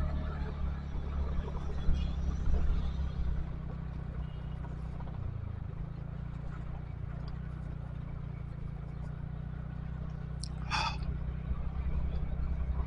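Steady low rumble of wind and road noise from a moving vehicle, heard on a ride-mounted camera mic, with a brief sharp sound near the end.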